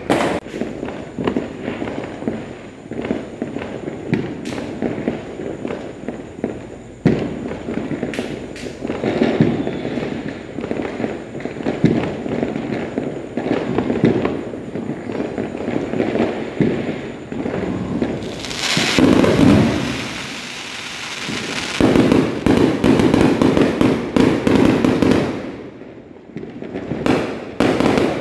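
Fireworks and firecrackers going off without pause: dense crackling with many sharp bangs. About two-thirds of the way in there is a loud hissing crackle, followed by a stretch of heavy rapid crackling. It dips briefly near the end before the bangs start again.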